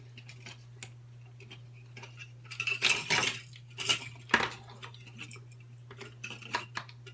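Small tools clicking and scraping on the plastic housing of cheap headphones as it is pried apart: a louder run of scraping about three seconds in, sharp clicks of plastic just after four seconds and again near the end. A steady low hum runs underneath.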